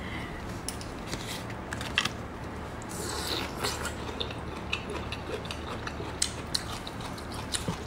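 Bamboo shoots being peeled and eaten: a string of short, sharp crisp crunches and tearing snaps from biting and pulling apart the fibrous shoot, over a low steady hum.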